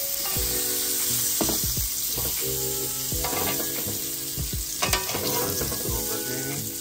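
Octopus pieces sizzling on a hot grill, a steady frying hiss with a few sharp clicks.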